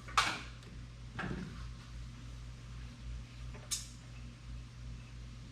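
Handling noise from small objects being picked up and set down: a sharp click just after the start, a softer scrape about a second in, and another sharp click a few seconds later, over a low steady hum.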